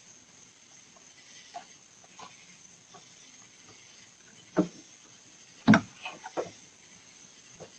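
A few sharp knocks and clunks: one about four and a half seconds in, the loudest just before six seconds, then a quick run of smaller knocks, over a steady faint hiss with a thin high whine.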